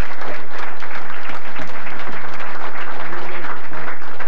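Audience applauding, a dense, steady clapping that thins out near the end.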